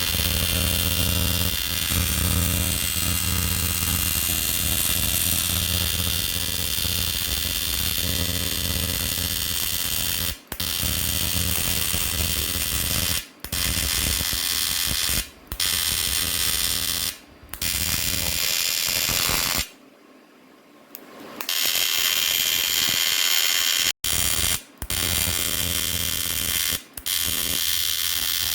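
Small high-speed rotary grinder whirring steadily as it grinds contamination out of a weld on a car wheel rim. The sound cuts out briefly several times, with a longer stop about twenty seconds in.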